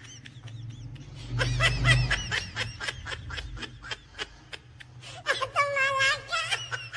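A person laughing under their breath: a run of quick, breathy snickers for a few seconds, then a higher-pitched wavering giggle near the end.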